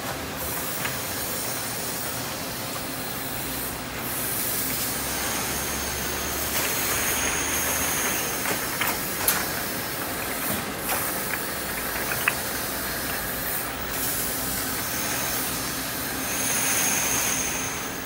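Automatic glass bottle washing line running: a steady mechanical hum and hiss from the machine and its conveyor, with occasional sharp clinks of glass bottles knocking together, mostly in the middle stretch.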